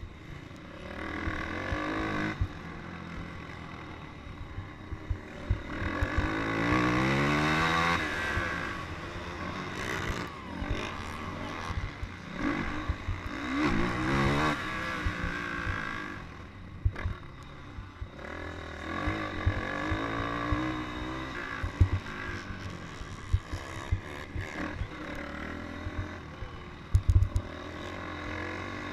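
Onboard sound of a dirt-track racing engine, revving hard up through its range and backing off again for the turns; it climbs steeply twice, about six and thirteen seconds in. Rushing wind and knocks and clatter from the rough dirt surface run underneath.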